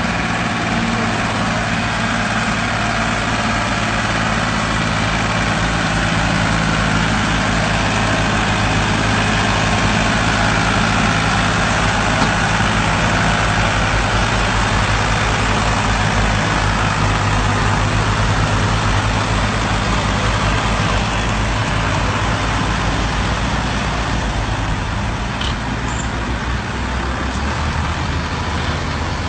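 Heavy diesel engine running steadily, with a constant low hum under a broad hiss.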